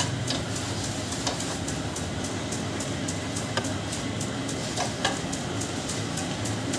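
Steady machine hum with a fast, even ticking running under it. A few light metallic clinks come as a spanner works on a motorcycle's fuel tap.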